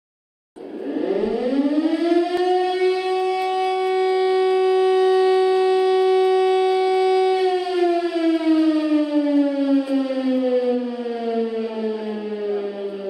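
Air-raid siren winding up about half a second in, rising quickly to a steady note, holding it for about six seconds, then winding slowly down in pitch and still sounding at the end.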